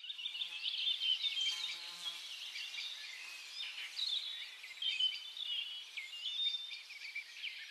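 Small birds chirping and twittering outdoors, many short high calls and quick rising and falling notes overlapping without a break.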